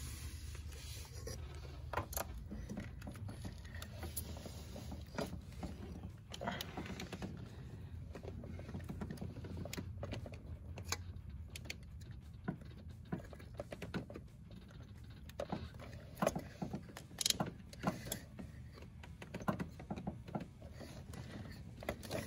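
Scattered small clicks, taps and rustles of hands and metal working a new TFI ignition module into place on the distributor in an engine bay, over a low steady hum.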